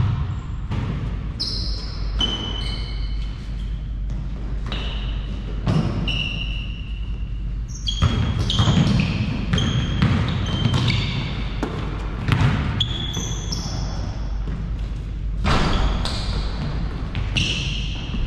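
Basketball game on an indoor court: the ball bouncing off the floor again and again, with frequent short, high sneaker squeaks, over a steady low hum.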